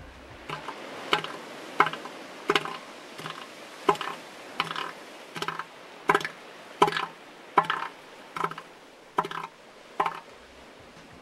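Male northern elephant seal giving its pulsed threat call: a steady series of loud, clapping pulses, about one every 0.7 seconds.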